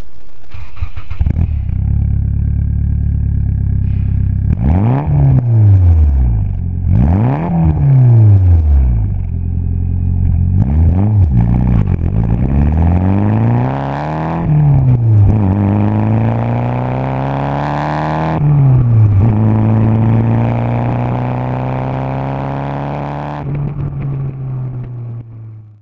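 Nissan 180SX's turbocharged SR20 four-cylinder through a 3-inch stainless turbo-back exhaust with twin mufflers: it idles, is revved and let fall back about three times, then accelerates with two gear changes, each a climb in pitch and a sudden drop. It then settles into a steady cruise.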